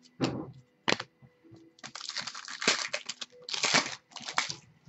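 Trading cards being handled by hand: dry rustling as cards are flipped and slid against one another, with small clicks and taps as they are set down on a stack. The rustling comes in two stretches, about two seconds in and again near the end.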